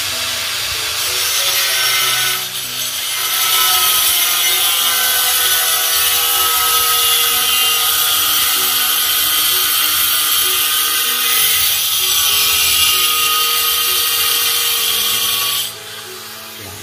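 Handheld angle grinder cutting a large ceramic tile, the disc grinding steadily with a loud hiss. The cut eases off briefly about two seconds in, then runs on until the grinder stops near the end.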